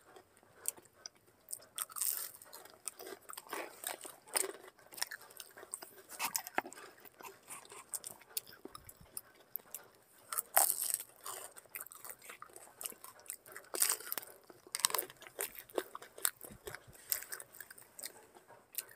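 Samosas being bitten and chewed, with irregular crunches of the crisp fried pastry; the loudest bites come every few seconds.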